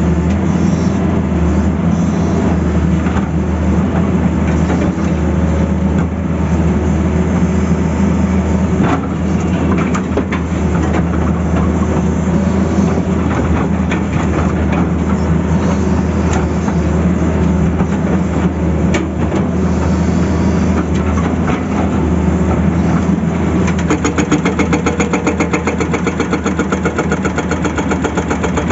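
Tata Hitachi excavator's diesel engine running steadily. Near the end a rapid, even hammering starts over the engine.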